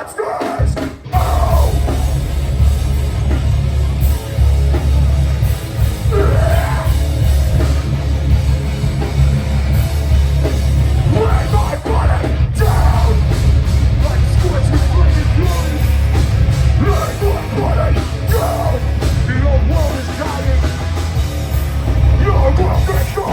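Live hardcore punk band playing loud, distorted guitars, bass and pounding drums, with shouted vocals, heard through a phone-style crowd recording with heavy, booming bass. The music breaks off briefly at about one second in and again, for an instant, about halfway through.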